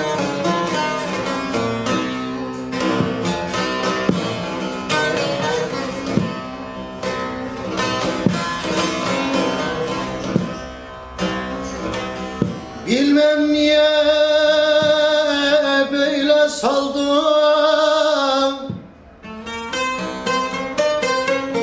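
A long-necked divan sazı (bağlama) with a 46 cm carved mulberry bowl, played with rapid plectrum strokes in a Turkish folk melody. About thirteen seconds in, a man's voice sings a long held phrase with vibrato over it for about six seconds, then the saz playing carries on alone.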